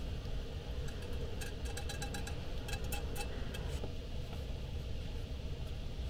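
A quick run of light metallic clinks and taps, a utensil against a small frying pan and the pan set down on a portable gas stove, over a steady low rumble.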